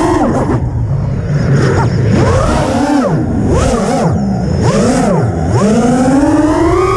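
Small FPV quadcopter's electric motors whining, their pitch swooping up and down with rapid throttle changes, then rising and holding high near the end.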